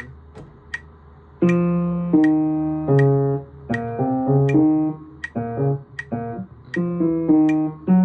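Digital piano playing a slow line of single notes, each struck and then dying away, starting about a second and a half in, over a metronome clicking steadily at 80 beats per minute.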